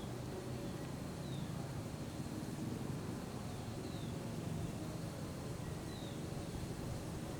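Forest ambience: a small bird repeating a short, high chirp that falls in pitch, every second or two, over a steady low rumble.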